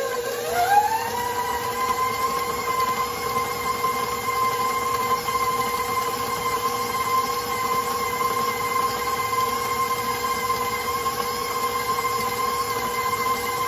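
Electric stand mixer running with a flat beater through thick cookie dough: a steady motor whine that rises in pitch under a second in as the speed is turned up, then holds.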